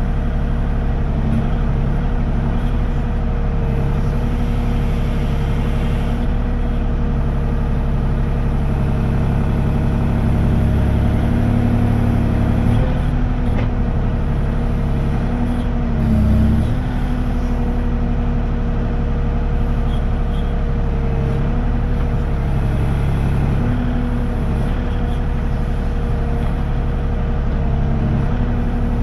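Kubota KX040 mini excavator's diesel engine running steadily while it works the boom and bucket. About halfway through, the engine note briefly drops and gets louder, then settles back.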